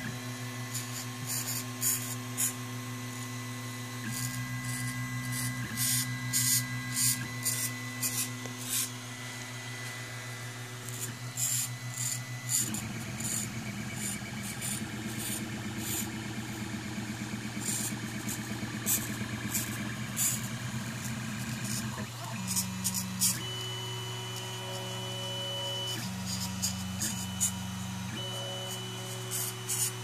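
Makerfarm Prusa i3v 3D printer printing: its stepper motors whine in steady tones that change pitch every few seconds, with irregular runs of sharp creaking clicks that the owner suspects come from the Wade's extruder gears.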